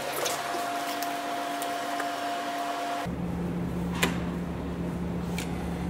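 Steady mechanical drone of a ferry's engines and ventilation inside the ship, dropping abruptly to a lower hum about three seconds in. A sharp click follows about a second later as a card key is held to a cabin door's lock.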